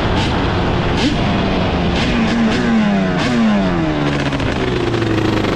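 1990 Yamaha Banshee's 350cc twin-cylinder two-stroke engine running while the quad is ridden. Its pitch falls twice, about two and three seconds in, as it comes off the throttle, then holds steady at a lower pitch.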